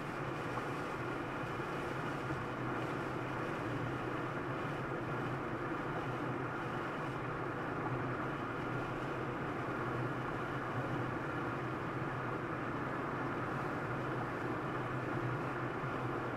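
Steady road and engine noise inside a moving car: an even rumble and tyre hiss with a low drone, unchanging throughout.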